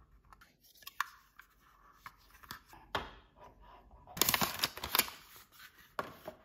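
Hands handling a small plastic gel nail lamp and packaging boxes: a few sharp taps and clicks, then about a second of rustling and scraping a little past halfway.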